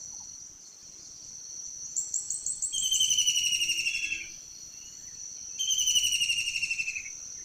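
Steady high-pitched insect drone, with two bursts of fast repeated chirping notes, each lasting a second or two, from a bird or insect calling close by.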